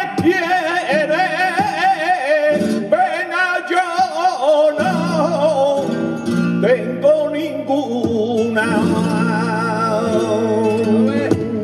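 A male flamenco singer sings a soleá in E, por arriba, in long, wavering, ornamented lines. A flamenco guitar accompanies him, its chords sounding under the voice more steadily from about halfway through.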